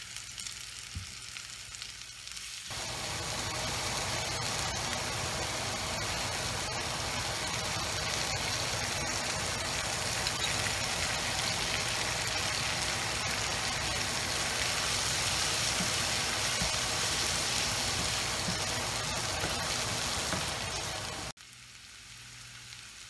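Sliced onions sizzling as they fry in oil in a frying pan. The sizzle jumps much louder a few seconds in, runs steadily, and cuts off sharply near the end.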